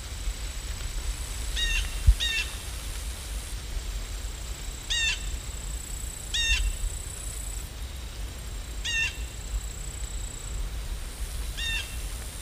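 A bird calling: about six short calls, mostly in pairs, over a steady low rumble, with a single sharp thump about two seconds in.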